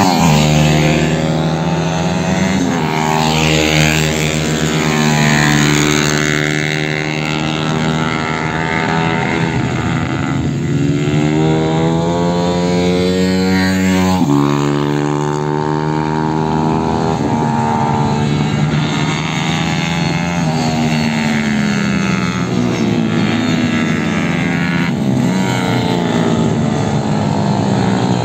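Small supermotard motorcycles lapping a track, several engines at once, revving up and down through the corners and gear changes as they pass.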